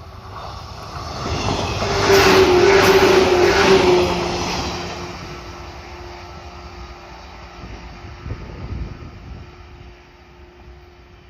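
Train passing close by: wheel and track noise swells to a peak about two seconds in, carrying a steady tone that drops slightly in pitch as the train goes by, then fades away, with a smaller swell near the end.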